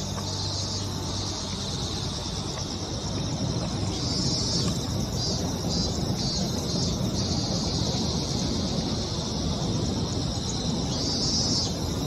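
Insects chirping in a steady high pulsing chorus over the low rumble of an electric commuter train crossing a river bridge, the rumble a little louder from about four seconds in.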